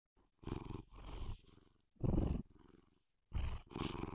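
Domestic cat purring close to the microphone, in pulsing stretches that come and go with each breath in and out, with short pauses between them.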